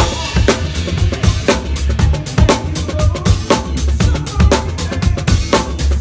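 Drum kit played in a funk groove: snare and rimshot backbeat about twice a second, bass drum and fast cymbal strokes, with the rest of the band's music underneath.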